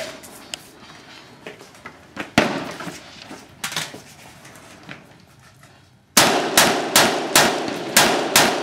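Gunshots from an AR-style semi-automatic rifle fired from prone. Single shots come about two and a half and three and a half seconds in, with fainter cracks before them. From about six seconds in there is a rapid string of about seven shots, roughly two or three a second.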